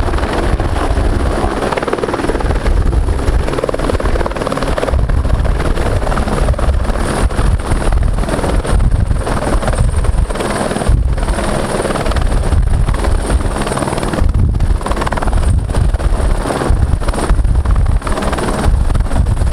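An Airbus AS350 Esquilo police helicopter hovering close to the ground. Its rotor makes a steady, heavy noise, with the single turbine's high, steady whine above it.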